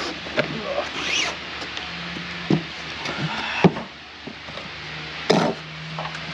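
Handling noises and footsteps on a fibreglass boat deck: rustling and a scatter of knocks as someone gets up and steps across in work boots, the sharpest knocks a little before four seconds in and about five seconds in.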